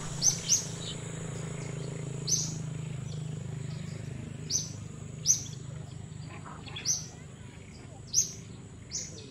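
Short, high bird chirps, about eight of them spaced a second or two apart, over a steady high-pitched whine and a low hum.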